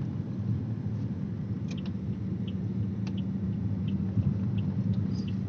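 Steady low rumble of a moving vehicle heard from inside the cabin: engine and road noise, with faint short high ticks now and then.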